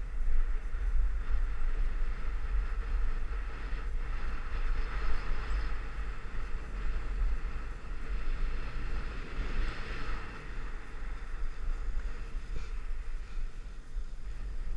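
Wind buffeting a moving action camera's microphone, a steady low rumble, over the hiss of sliding down packed, groomed snow, which swells a little about five and ten seconds in.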